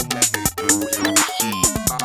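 Electronic drum-machine beat: deep kick drums that slide down in pitch, sharp snare hits and short synth notes in a steady groove.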